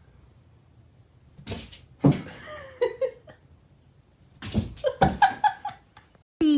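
A person laughing in short bursts, twice: once about two seconds in and again about four and a half seconds in.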